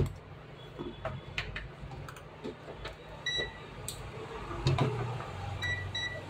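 Bench handling noises, a circuit board set down and tools and a multimeter picked up, giving a sharp knock at the start, scattered clicks and a heavy thump just under five seconds in. Short high beeps from a digital multimeter as its buttons are pressed, once a little past three seconds and twice near the end, over a steady low hum.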